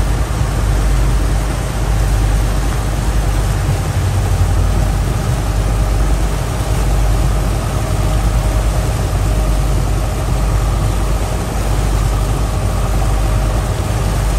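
Fishing boat's engine running steadily under way, a loud low drone with a faint steady whine above it and a wash of wind and water noise.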